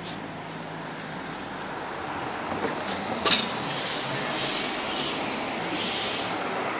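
Road traffic noise, growing a little louder about two seconds in, with one sharp click about three seconds in.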